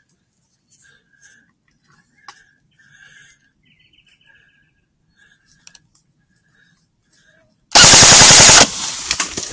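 A rifle shot at a wild boar, picked up by the thermal riflescope's own microphone. One blast nearly eight seconds in overloads the recording for almost a second, and is followed by a crackling rustle in the undergrowth that dies away.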